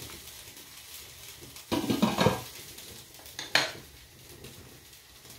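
Cookware clattering as a glass pot lid and a wooden spatula knock against the pot and bowl: a quick cluster of knocks about two seconds in, then one sharper knock a little later, over a faint steady hiss.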